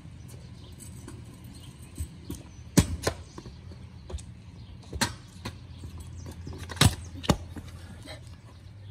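Stunt scooter on concrete: a low rumble of its wheels rolling, broken by several sharp clacks as the deck and wheels slap down on the pavement.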